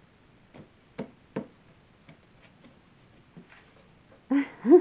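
Several faint clicks and light knocks as a pneumatic nail gun is handled and moved along wooden archway boards between shots, with a short voice-like sound near the end.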